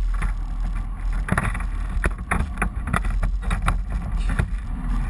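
Irregular knocks and rattles of a wire-mesh lobster trap being handled, picked up close by a GoPro fixed inside it, over the steady low rumble of the lobster boat's engine.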